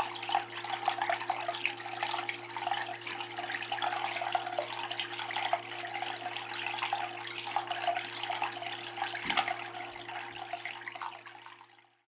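Water trickling and splashing down the stepped face of a small cement tabletop waterfall fountain into its basin, with a steady low hum underneath. The sound fades out near the end.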